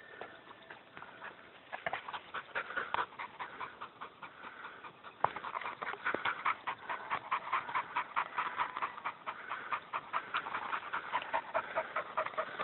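A hunting dog panting fast and evenly while working close by in dense scrub.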